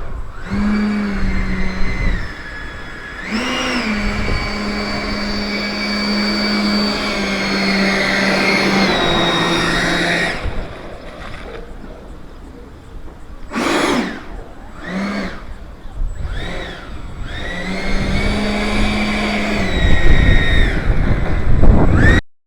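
Radio-controlled L-39 model jet's fan whining as the throttle is opened and closed while taxiing: the pitch rises about half a second in, jumps higher a few seconds later and holds, then falls away; two short blips follow, then a final rise, hold and drop. The sound cuts off suddenly just before the end.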